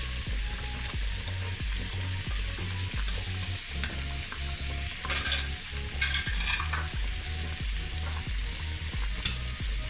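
Chicken pieces sizzling steadily in oil in a frying pan as chopped onion, green capsicum and tomato are pushed in off a chopping board, with a few short clicks and scrapes of a fork on the board and pan about five to six and a half seconds in.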